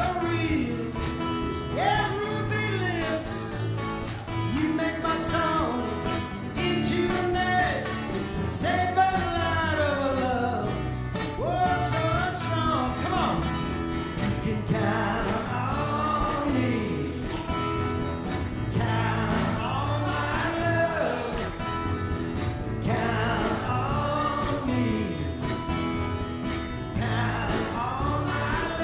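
Live acoustic band: two acoustic guitars strummed over a plucked upright bass, with a male voice carrying the melody.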